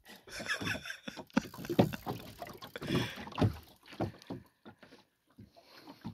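Water slapping and knocking against the hull of a small open boat, in uneven strokes that thin out and grow quieter near the end.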